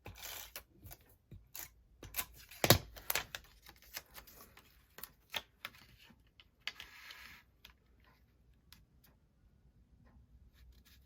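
Paper and card pieces being handled on a craft table: a series of light taps, clicks and rustles, with the loudest knock about three seconds in and a short rustle around seven seconds. It goes quieter for the last few seconds.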